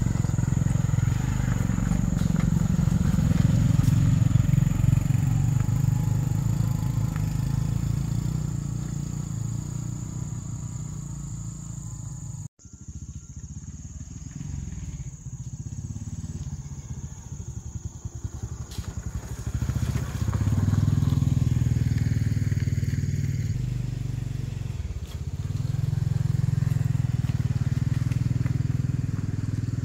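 Motorbike engine running under way, a steady low drone. It breaks off abruptly for a moment about twelve seconds in, then grows louder again around twenty seconds and once more around twenty-six.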